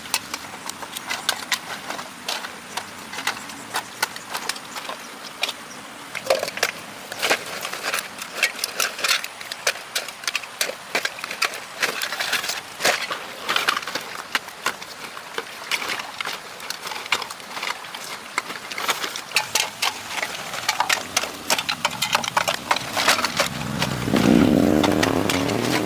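Rapid, irregular cracking and snapping throughout, with a louder pitched sound swelling briefly near the end.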